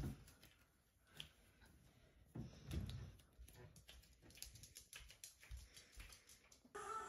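Faint, light clicking of a small maltipoo puppy's claws on a laminate floor as it scampers off, with a soft thump a few seconds in. Background music starts near the end.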